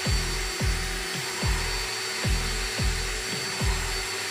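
An electric drill running steadily, spinning an engine valve on a vacuum-line sleeve to lap it against its seat in a KL V6 cylinder head with valve grinding compound. Background music plays a deep bass beat about every three-quarters of a second.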